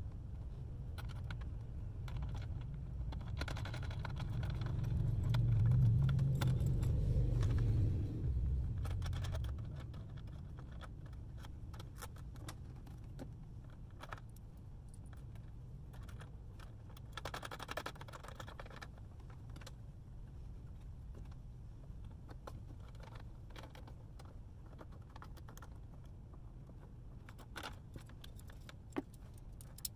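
Metal cable ring terminals clinking and rattling against busbar studs and each other as battery cables are handled and fitted. Underneath is a steady low rumble that grows louder for a few seconds about four to eight seconds in.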